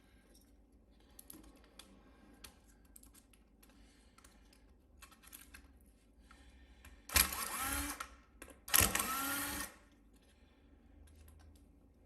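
Light clicks and taps of small laptop parts being handled, then two short whirs of a small electric motor, each under a second and rising in pitch as it spins up.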